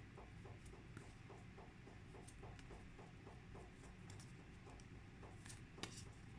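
Near silence in a small room, with a faint, quick, even ticking of about four ticks a second and a couple of soft clicks near the end.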